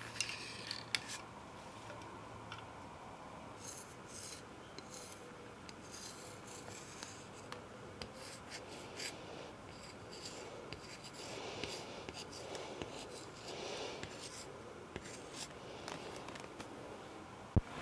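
Hands rubbing and handling a slate chalkboard sign, making soft scratchy scraping sounds in short, irregular bouts, with one sharp click near the end.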